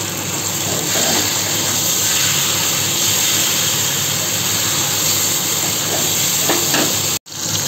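Potatoes and spice paste sizzling steadily as they fry in oil in a kadai, while a spatula turns them. The sound cuts out briefly near the end.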